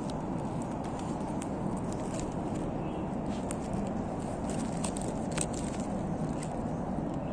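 Steady low background rumble with scattered faint, irregular clicks and ticks.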